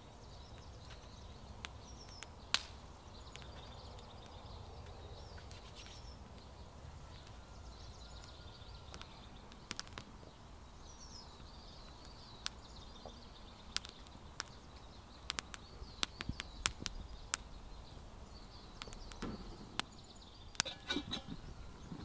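Quiet forest ambience with birds chirping faintly. A small wood fire crackles, its sharp pops scattered at first and coming thick and fast in the second half, with some rustling near the end.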